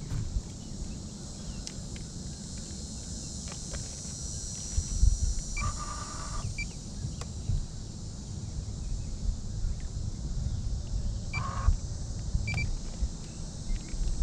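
Outdoor pond-side ambience: a steady high insect chorus over a low rumble, with two short animal calls about six and eleven seconds in.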